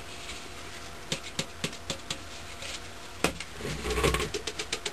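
Powdered firework composition poured into a 20-mesh kitchen colander and sifted by tapping the colander by hand. A soft hiss of pouring powder comes first, then a few separate knocks and a sharper knock a little after three seconds, then quick, even tapping at about six taps a second near the end.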